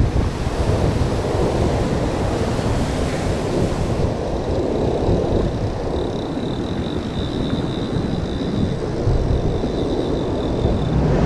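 Wind buffeting the microphone over the steady wash of ocean surf, with a thin, high steady whine for about five seconds in the second half.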